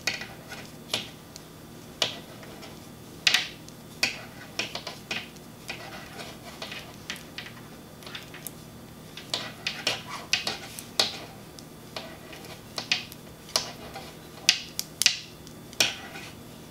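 Wooden knitting needles clicking against each other as a row is knit by hand: light, irregular clicks, a few each second, some in quick clusters.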